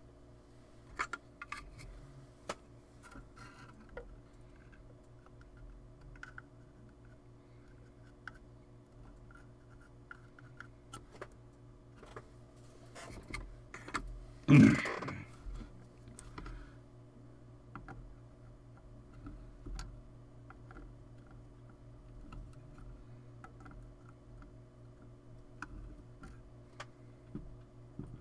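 Scattered small clicks and taps of handling on a workbench over a steady low hum, with one much louder sound about a second long about halfway through.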